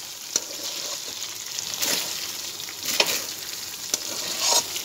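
Rice-flour fara dumplings sizzling in oil with mustard-seed tadka in a kadhai, the cooking water fully dried off, while a metal spatula stirs them, scraping the pan about four times.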